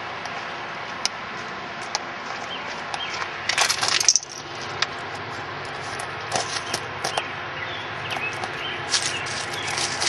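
Outdoor ambience: a steady background hiss with scattered clicks and several bursts of crisp crackling rustle, the loudest about four seconds in and more near the end. Faint short bird chirps come and go.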